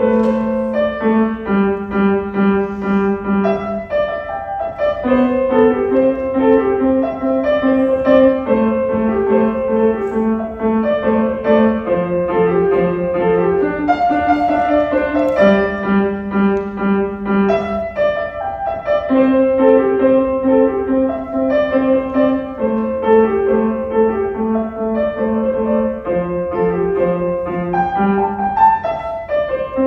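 Acoustic piano played by a young beginner at a recital: a simple, evenly paced melody over held bass notes.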